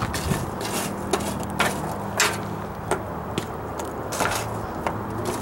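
Metal tongs clinking and hot charcoal briquettes clacking against a steel fire pan as the coals are picked up and spread out: sharp irregular clicks about every half second to a second, over a low steady hum.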